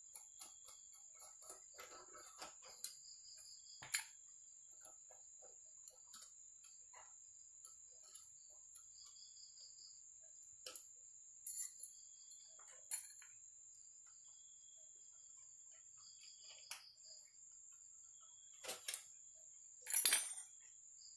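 Scattered light metallic clicks and taps of hand tools and parts during the strip-down of a Yamaha Jupiter 135 motorcycle engine, with a sharper knock about 13 seconds in and a short clatter near the end. A steady high thin whine and short repeated chirps sound faintly behind.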